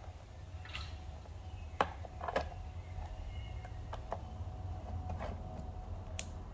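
A few light clicks and taps of small parts being handled during work on a motorcycle instrument cluster, over a steady low hum.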